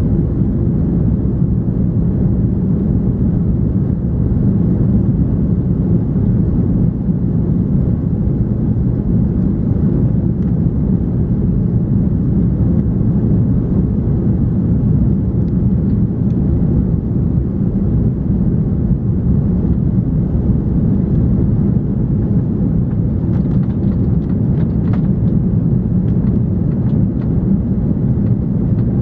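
Steady low rumble of an Airbus A340-300 heard from inside the passenger cabin: engine and airflow noise, even in level, with a few faint light ticks about three-quarters of the way through.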